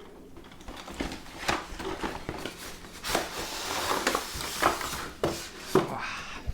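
A cardboard train-set box being handled and opened: several sharp knocks and clicks, with a longer scraping rustle of cardboard and packaging in the middle.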